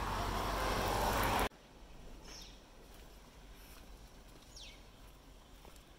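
Strong wind buffeting the microphone, cut off abruptly about a second and a half in, leaving a quiet background with a few faint, short downward bird chirps.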